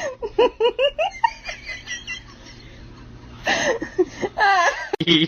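A person laughing: a quick run of high giggles at the start, then louder drawn-out whoops of laughter from about three and a half seconds in.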